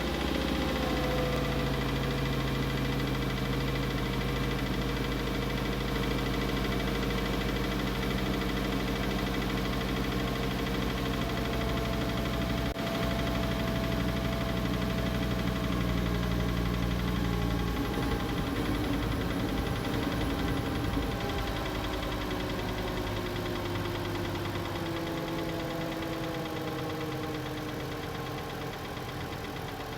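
2012 VW Passat's 2.5-litre inline five-cylinder engine idling just after a cold start, with a tapping noise from the engine bay that the owner suspects is a bad water pump or belt tensioner. The idle note drifts slowly lower and changes about 18 seconds in.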